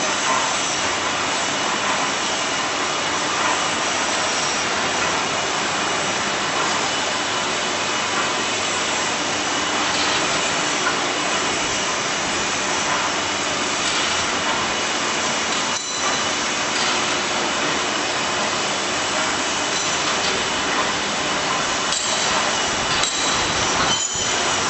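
Motor-driven aloe vera peeling machine running, with a steady, even mechanical noise from its motor, rollers and conveyor while leaves are fed through.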